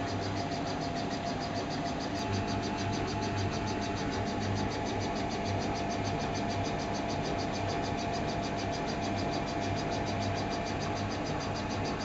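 Samsung Eco Bubble front-loading washing machine running mid-wash with water in the drum: a steady low hum and a constant whine, overlaid by a fast, even, high-pitched pulsing.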